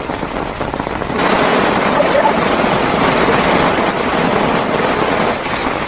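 Heavy rain falling on a plastic shelter, a dense steady hiss that grows louder about a second in.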